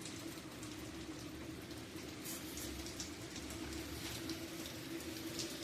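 Light rain falling, heard as faint scattered ticks over a soft hiss, with a steady low hum underneath.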